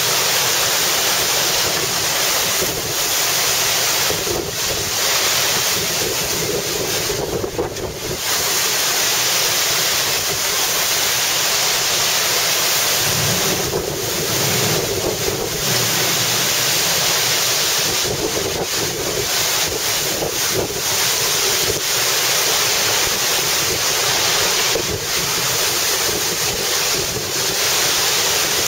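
Heavy wind-driven rain pouring down: a loud, steady rush of noise that dips briefly every few seconds as the gusts ease.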